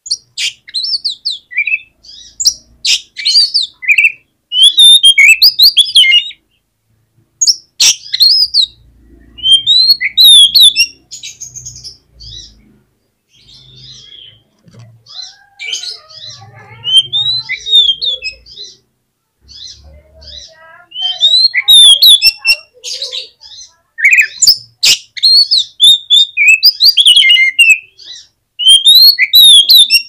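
Oriental magpie-robin (kacer) singing: loud, varied whistled phrases and trills in bursts with short pauses, and a few sharp clicks among them.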